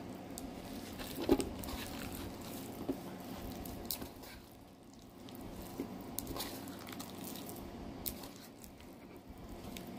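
Clumpy homemade slime with foam beads being squeezed and kneaded by hand: irregular soft squishing with scattered small clicks and crackles.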